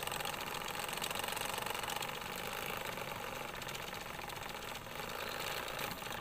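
Small brushed DC motor running off a battery, spinning a homemade drive shaft of pen tubes with universal joints and turning toy wheels: a steady high whir with a fine rapid ticking. It cuts off at the very end.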